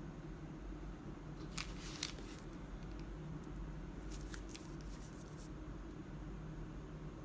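A few sharp little clicks and taps from a phone or its packaging being handled, in two small clusters, over a steady low electrical hum.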